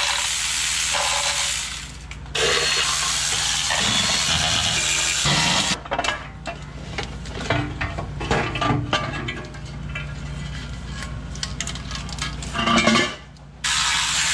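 Cordless electric ratchet buzzing as it spins bolts out, in two runs over the first six seconds and again near the end. In between come metal clinks and knocks from parts being handled.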